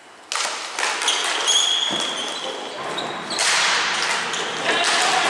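Ball hockey play echoing in a sports hall: sticks and ball clacking and knocking again and again, starting suddenly about a third of a second in, with a few brief high squeaks.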